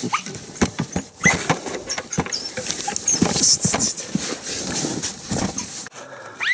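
Leashed dog whining in short rising yelps as it pulls along, over footsteps scuffing and crunching on loose rock and stones clattering.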